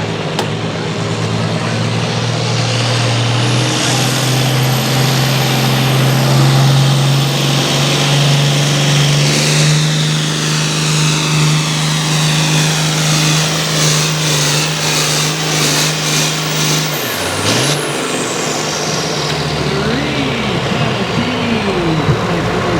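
Altered farm tractor engine running hard at full throttle while pulling the sled, its pitch held high and creeping up. About 17 seconds in the engine drops off sharply as the pull ends, then runs unevenly at lower revs.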